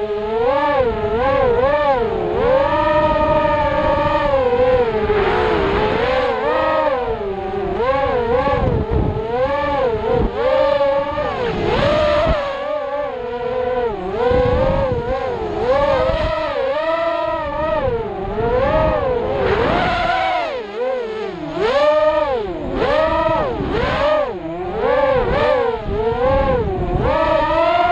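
Thrust-UAV Riot 250R racing quadcopter's brushless motors and propellers whining loudly, the pitch swooping up and down every second or so as the throttle changes through the flight.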